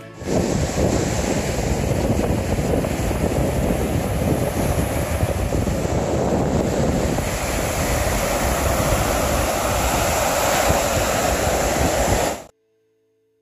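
Sea surf washing onto a sandy beach, mixed with wind noise on the microphone; it cuts off suddenly about a second before the end.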